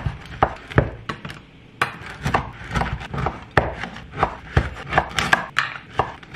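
Large kitchen knife cutting a French baguette into chunks on a wooden cutting board: repeated sharp cuts through the crust and knocks of the blade on the board, about two to three a second, with a short lull about a second in.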